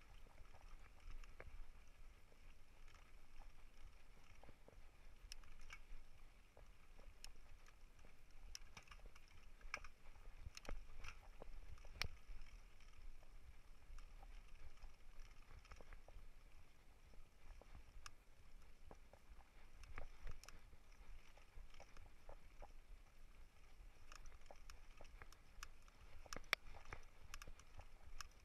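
Mountain bike riding over a bumpy dirt trail: a low rumble with many irregular clicks, knocks and rattles as the bike jolts over the ground.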